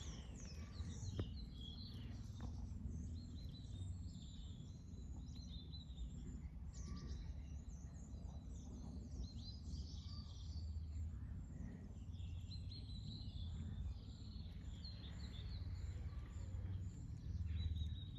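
Small birds chirping and singing on and off, over a low steady rumble of outdoor background noise.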